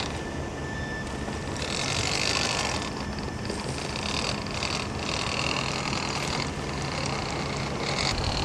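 Small RC crawler's electric motor and gearbox (Losi Mini Crawler motor and transmission) whining as it crawls through snow, coming and going in short spurts as the throttle is worked.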